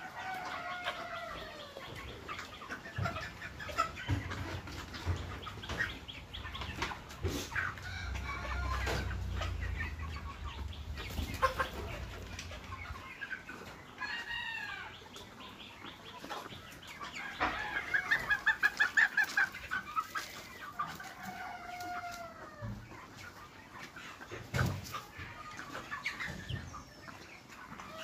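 A flock of broiler chickens clucking and giving short falling calls, with a quick run of repeated notes about two-thirds of the way through. The keeper says the flock is sick with a throat illness and struggling to breathe.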